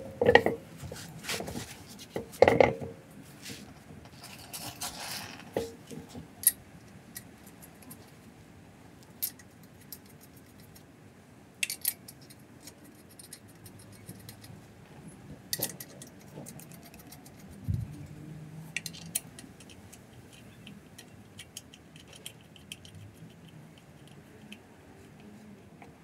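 Lug nuts being turned by hand onto a car wheel's studs: scattered light metallic clinks and clicks, with a louder clatter in the first few seconds.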